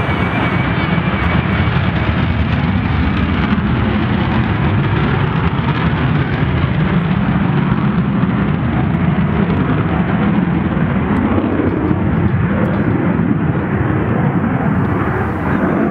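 Jet engine noise from a delta-wing jet flying away: a loud, steady rumble.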